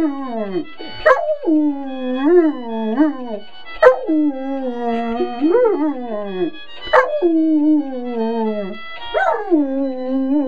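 Yellow Labrador retriever howling along to piano music. About four long howls, each jumping up sharply and then sliding down in pitch, over steady piano notes.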